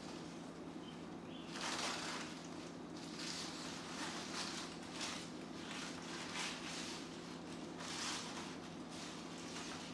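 Paper towel and a paper coupon rustling and crinkling in repeated short bursts as a white pet bird shreds them with its beak, over a steady low hum.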